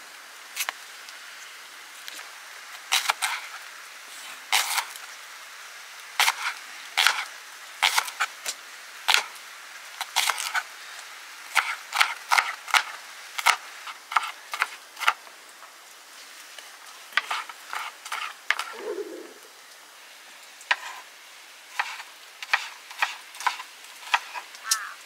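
Kitchen knife slicing a red onion on a plastic cutting board: sharp, irregular knocks of the blade striking the board, often in quick runs of a few cuts with short pauses between.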